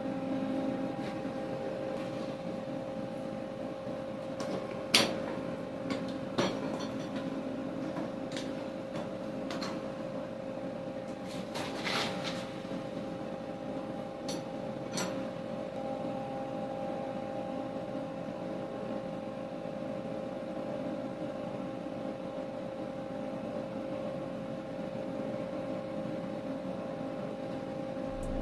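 Steady hum of a welding machine, with a few sharp metal clicks and knocks now and then, the loudest about five seconds in and again around twelve seconds.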